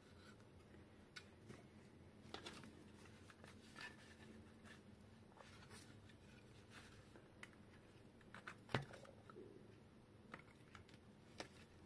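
Faint, scattered clicks and taps of a circuit board and plastic speaker-amplifier cabinet being handled and fitted together, with one sharper knock near the end.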